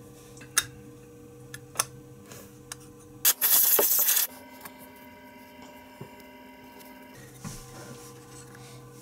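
A one-second hiss from an aerosol spray can fired through an extension straw, near the middle, the loudest sound here. Before it, a few sharp clicks of handling the metal throttle body, all over a steady low hum.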